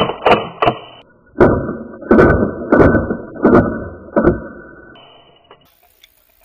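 A string of about eight sharp airsoft pistol shots, each with a short ringing tail. The first few come about three a second; after a short gap the rest come a little slower and sound duller.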